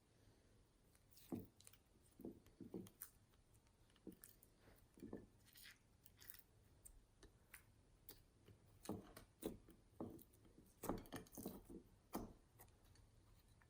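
Clear slime being squished and kneaded by hand, making faint, irregular sticky clicks and squelches, with busier clusters about nine and eleven seconds in.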